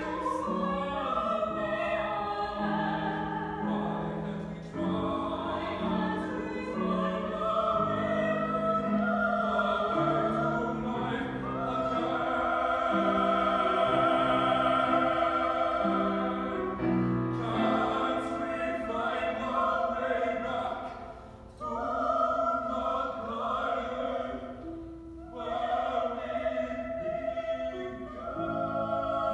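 A man and a woman singing a duet in an operatic style, with long held notes and vibrato, over an instrumental accompaniment.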